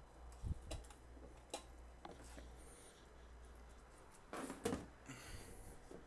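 Faint clicks and light knocks as a desktop power supply and its bundle of cables are handled, with a louder rustling scrape about four and a half seconds in.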